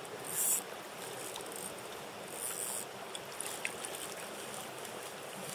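Steady rush of flowing river water, with two brief high hissing bursts, about half a second in and about two and a half seconds in.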